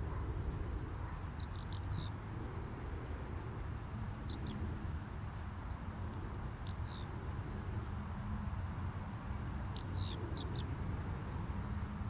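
Eurasian skylark, a parent bird with food in its beak, calling for its chicks: short, high, falling chirps in four brief bursts a few seconds apart, over a steady low rumble.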